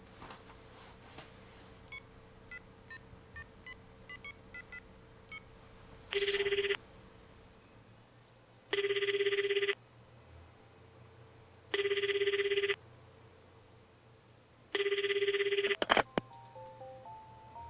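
Phone keypad beeping about a dozen times as a number is dialled, then four ringing tones, each about a second long and three seconds apart, of the call ringing out. Near the end there is a click and a simple electronic tune starts.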